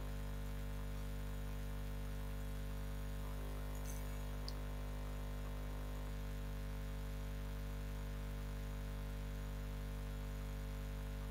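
Steady low mains hum, with one faint tick about four and a half seconds in.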